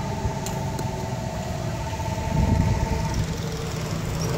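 Small go-kart engine running with a steady note that stops about three seconds in, and a low rumble that swells about two and a half seconds in.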